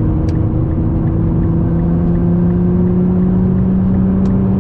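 Inside the cabin of a 2014 Nissan GT-R Track Edition, its twin-turbo V6 drones through a titanium mid-pipe and cat-back exhaust while cruising. The note slowly rises in pitch as the car gently gains speed, over steady road noise.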